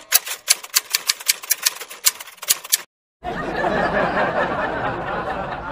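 Typewriter sound effect: a rapid run of sharp key clicks, about seven a second, as a caption types out on screen. They stop near the three-second mark, and after a brief dropout a steady rushing noise follows.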